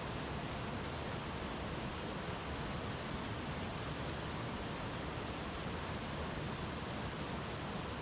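Running water of a small brook bubbling steadily.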